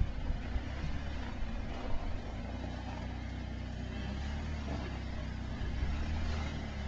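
Off-road 4x4 engine running at low speed as the vehicle crawls over lava rock, a steady low rumble. A few sharp knocks come in the first two seconds.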